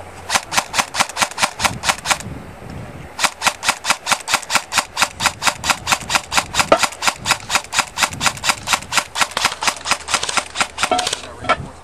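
Scoped airsoft electric rifle (AEG) firing rapid, evenly spaced shots, about eight a second: a two-second string, a pause of about a second, then a long string of about eight seconds that stops near the end.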